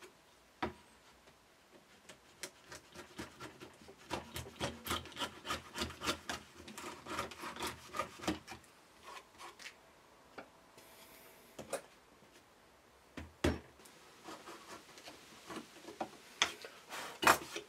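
Router plane taking short scraping cuts across the floor of a mortise in pine, levelling it to a set depth. A quick run of strokes for several seconds gives way to scattered clicks and a couple of sharper knocks later on.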